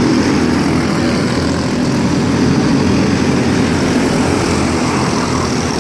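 Engines of several microstock race cars running as they circle a dirt oval: a loud, steady, continuous drone.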